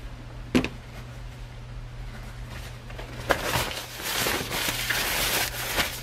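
Handling noise at a workbench: a single light knock, then about two and a half seconds of rustling and shuffling with a few sharp clicks, as a cable and towels are moved about. A steady low hum runs underneath.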